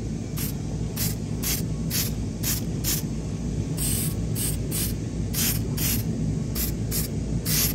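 Aerosol spray paint can spraying in short hissing bursts, about two a second, with a few longer sprays, over a steady low rumble.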